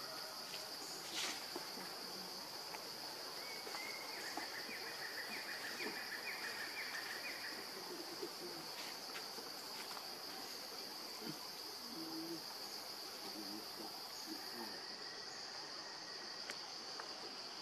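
Steady high-pitched insect drone in the forest. A second, rapidly pulsing call joins in from about three and a half to eight seconds in.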